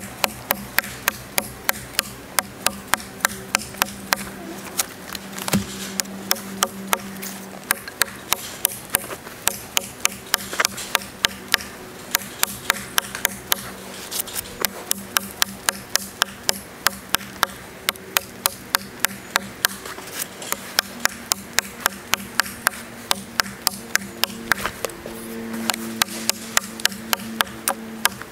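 Large chopping knife hacking into a log, steady sharp wooden knocks at about three a second.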